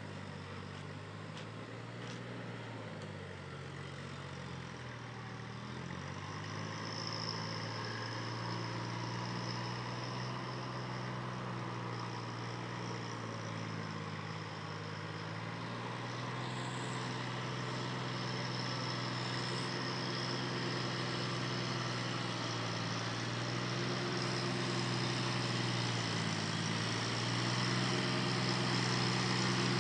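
Sonalika DI 740 III tractor's diesel engine running steadily as it puddles a flooded paddy field on cage wheels, growing louder as it comes closer. Its pitch dips briefly a few seconds in and again near the end.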